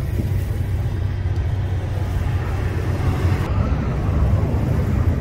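Low steady rumble of an idling vehicle engine, heard from inside the vehicle.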